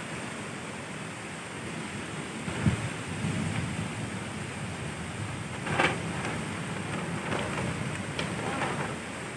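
Strong wind rushing and buffeting the microphone in gusts, over a steady noise like surf, with two sharper bumps about a third of the way in and just past the middle.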